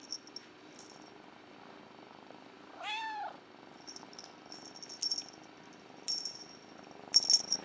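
A tuxedo kitten gives one short meow, rising then falling in pitch, about three seconds in: a kitten meowing for attention. A few short crackles of handling noise come later.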